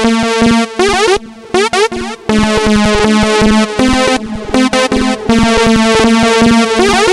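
Electronic synthesizer music with a fast, steady beat under sustained synth chords, thinning out briefly about a second in before the full beat returns.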